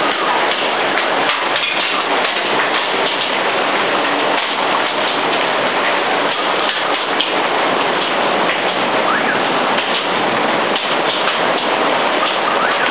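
Torrential wind-driven rain in a severe storm, a loud steady hiss.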